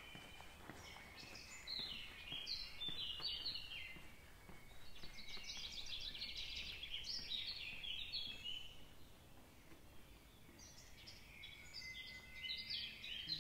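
A small songbird singing in three bouts of quick, high chirping phrases over faint steady background noise.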